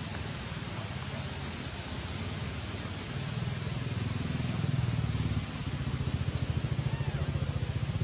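Steady outdoor hiss with a low rumble underneath that grows louder and pulses rapidly from about halfway through. A short high squeak near the end.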